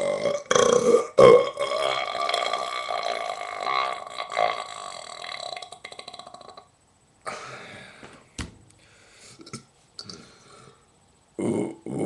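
A person belching: one long, drawn-out burp lasting about six and a half seconds that cuts off, then quieter throat sounds, and another loud burp starting near the end.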